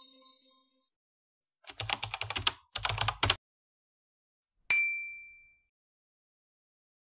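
Keyboard typing sound effect in two quick runs of clicks, then a single ding that rings out for about a second. It opens on the fading tail of a short intro jingle.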